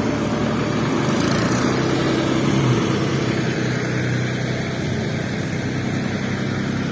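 Kubota DC70 Plus combine harvester's diesel engine running steadily.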